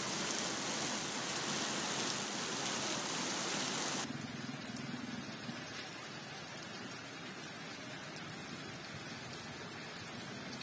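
Heavy tropical rain pouring down, a steady dense hiss of drops on water and hard surfaces; about four seconds in it abruptly turns a little quieter and thinner.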